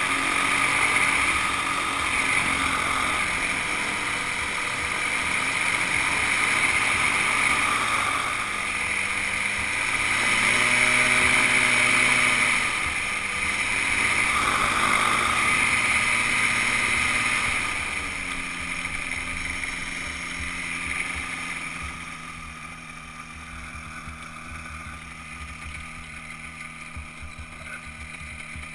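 Weight-shift microlight trike's engine and propeller running while it taxis, the engine speed rising and falling several times. It settles to a lower, quieter running for roughly the last third.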